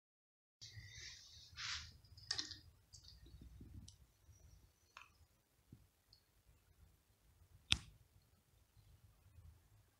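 Rustling and handling noise for the first couple of seconds, then scattered small clicks, with one sharp click, the loudest, about three-quarters of the way through: a cat's teeth clicking on a matatabi (silver vine) stick as it bites and chews it.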